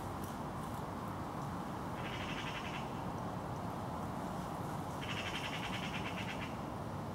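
Two rapid, evenly pulsed trills from a small animal, a short one about two seconds in and a longer one about five seconds in, over a steady rush of outdoor noise.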